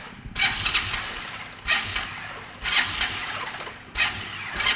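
Noise music: motorcycle sounds picked up by a handheld microphone at the handlebars and amplified through a laptop, coming as harsh surges of distorted noise, five in a row, each starting sharply and fading away.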